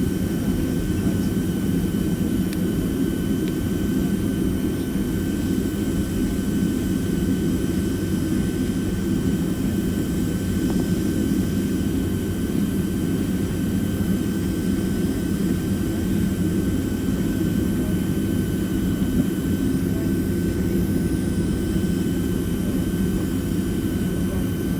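Steady cabin noise of a Boeing 767-300ER jet airliner in flight: an even low rumble of airflow and jet engines, with a faint steady high whine over it.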